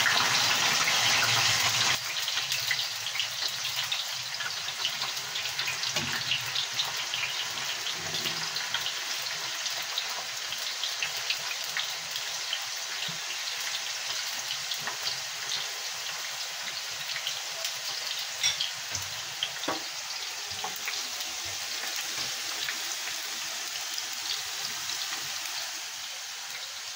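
Parboiled potato fries frying in hot oil in a pan, a steady sizzle with many small crackles. It is loudest for about the first two seconds, just after the potatoes go into the oil, then settles to a calmer sizzle that slowly eases.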